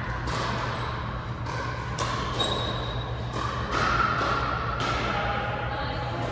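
Pickleball paddles striking the plastic ball and the ball bouncing on the court, a string of sharp pops at irregular intervals that echo through a large gym.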